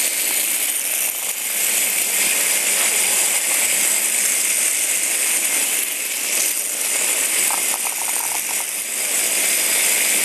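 Several Hexbug Bobble Bots buzzing and rattling as their little vibration motors shake them across a hard floor: a steady, hissy buzz.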